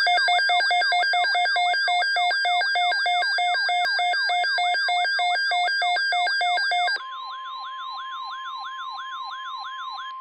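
Emergency Alert System attention signal. A loud electronic alarm of fast, repeating falling sweeps over several steady tones plays first. About seven seconds in it drops to a quieter single steady tone, the 1050 Hz NOAA Weather Radio alert tone, with repeating sweeps, about three a second, over it.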